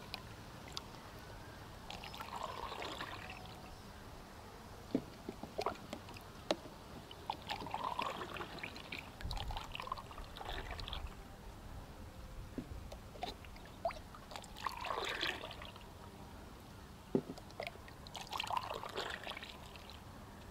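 Grape juice being poured and trickling into plastic cups, with splashes as a cup is dipped into a large pot of juice, in several separate pours. A few sharp light knocks fall between the pours.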